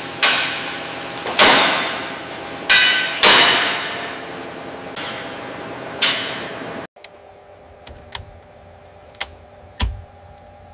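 Heavy metal clangs: five loud strikes in about six seconds, each ringing out with a long echo. After a sudden cut, a few fainter sharp clicks follow.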